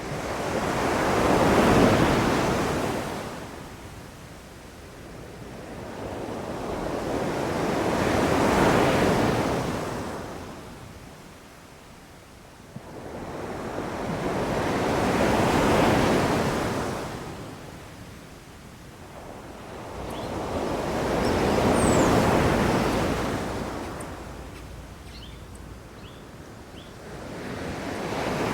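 Sea waves washing onto a shore, each swelling up and fading away about every seven seconds. A few faint, short, high bird chirps come in the second half.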